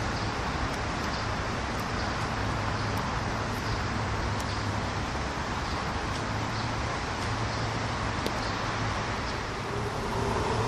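Steady traffic rumble with a low hum from the bridges over the river. Near the end it grows louder as a train crosses the elevated railway bridge.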